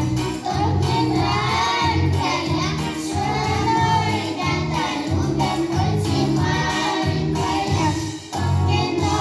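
A group of young girls singing together into microphones over a recorded backing track played through loudspeakers, the melody carried by the voices over a steady bass beat.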